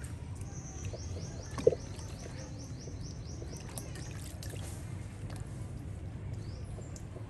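Macaques splashing and drinking in a plastic bucket of water: small splashes and clicks, with one sharp knock about a second and a half in. A bird calls a fast series of short, falling high notes, about four a second, through the first half, over a steady low background rumble.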